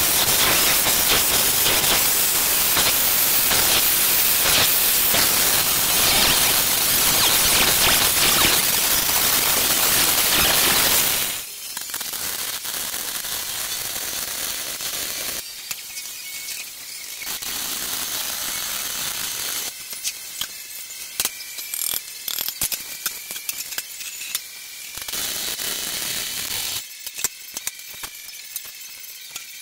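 An angle grinder cutting steel runs loud and steady for about eleven seconds, then cuts off. Electric arc welding follows: a quieter crackling and sizzling in several short passes, each starting and stopping, with scattered pops.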